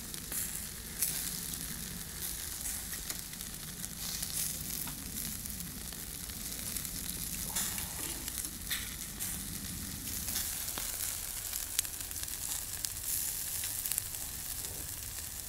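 Chicken wings sizzling and crackling steadily in a wire grill basket over hot charcoal, with an occasional sharp click of metal tongs against the grate.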